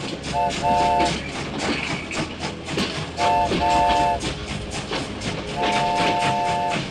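Train whistle sounding two quick double toots, then one long blast near the end, over a rapid clickety-clack of wheels running over rail joints.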